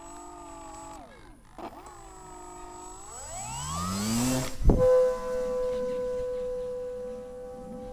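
A model plane's motor and propeller, its pitch dipping and recovering, then rising steadily as it throttles up. A sharp knock comes about four and a half seconds in, after which the motor holds one steady high tone.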